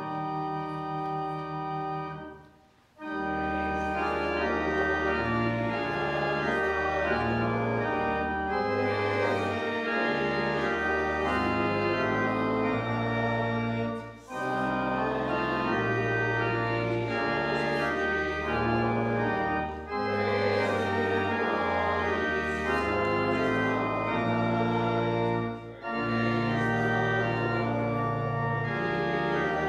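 Church organ playing sustained chords over a pedal bass line, with short breaks between phrases.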